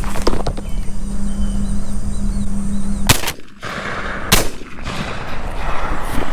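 Two shotgun shots at doves, about a second and a quarter apart, the first about three seconds in.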